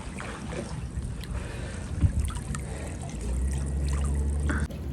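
Water lapping and splashing in a swimming pool, with a few light splashes and a low rumble for about a second and a half near the end.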